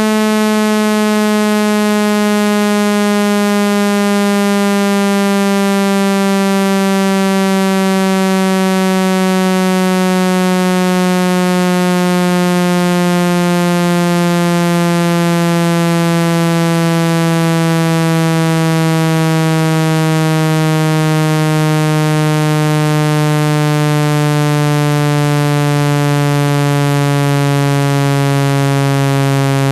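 Synthesized water-eject tone for clearing water from a phone speaker: a loud, buzzy electronic tone rich in overtones, its pitch sliding slowly and steadily downward.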